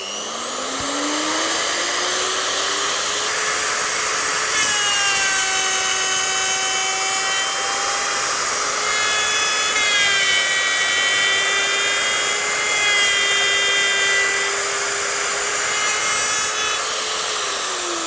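Plunge router with a 3/8-inch straight cutter spinning up after being switched on, then running at speed as it cuts a shallow counter-slot in MDF, a steady high whine. Near the end it is switched off and its pitch starts to fall as the cutter winds down.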